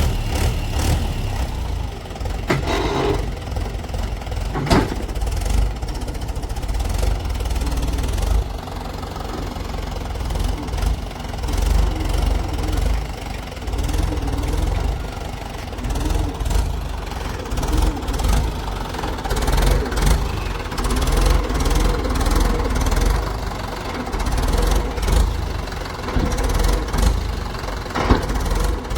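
A heavy diesel engine running steadily with a deep rumble, with a few sharp knocks or clanks over it.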